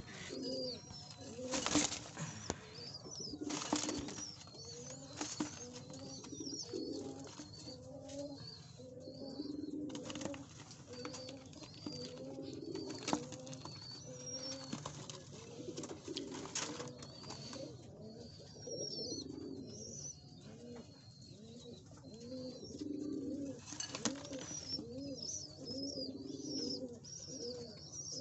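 A flock of pigeons cooing, many soft rolling coos overlapping one another, with higher chirps above them. Several short, sharp rushing sounds stand out, about a half-dozen over the stretch.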